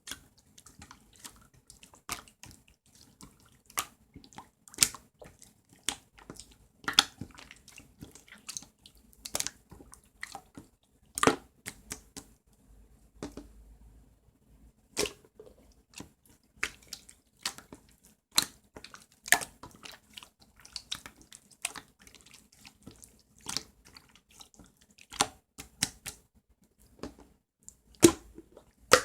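Irregular light clicks and taps, one or two a second, some louder than others, the loudest near the end.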